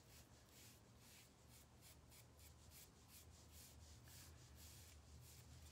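Faint swishing of a paintbrush laying white chalk paint onto a thin wooden piece, in quick repeated strokes of about four a second.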